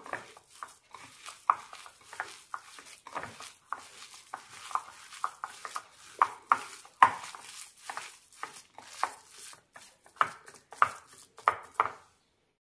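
Hand mixing and squeezing grated tapioca with rice flour and coconut in a glass bowl: soft crumbly rustling with irregular light knocks and clicks against the glass, stopping near the end.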